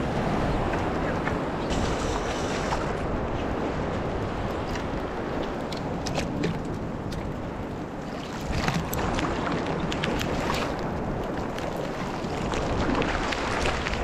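Wind buffeting the microphone in a snowstorm, a steady rumble and hiss, with the sea's surf underneath. A run of sharp ticks and knocks comes a little past halfway through.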